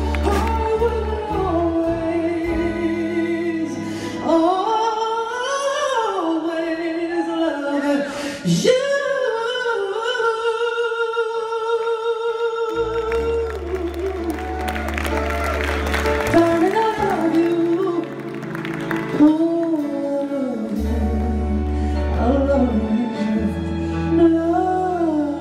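A singer performing live into a handheld microphone over instrumental backing, holding long notes with vibrato over sustained low notes.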